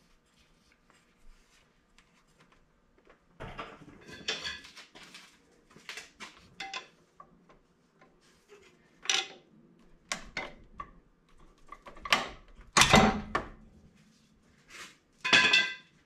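Metal hand tools and engine parts clinking, rattling and clanking while a wrench works the serpentine belt tensioner and crank pulley loose on a Jaguar engine. It starts about three seconds in, with a few sharp, ringing metal knocks, the loudest two near the end.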